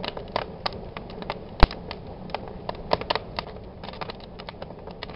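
Irregular sharp clicks and crackles, several a second, over a low steady hum; one louder click about a second and a half in.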